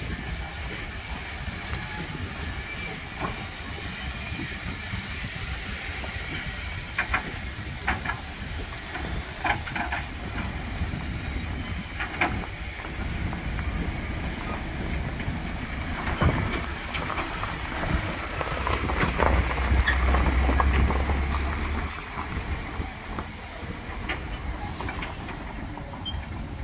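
Heritage railway passenger coaches rolling past, their wheels clicking over rail joints over a steady low rumble that grows louder about three-quarters of the way through.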